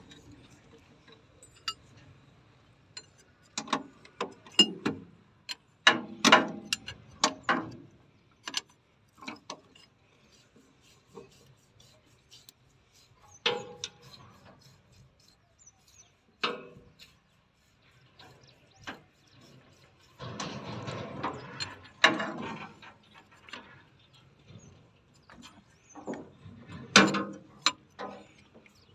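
Irregular metal clicks, clinks and knocks of a spanner and hose fittings as hydraulic hose fittings are worked and tightened on an excavator's hydraulic pump, with a busier stretch of rattling about twenty seconds in.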